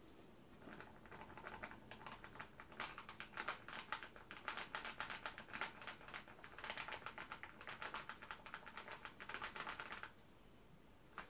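Sulphate poured from its bag into a red-topped plastic container: a quick, uneven pattering of grains mixed with rustling of the bag, which stops about ten seconds in.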